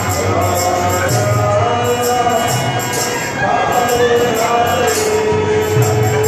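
Harinam kirtan music: a voice chanting over hand cymbals (kartals) ringing in a steady beat, with a low drum underneath.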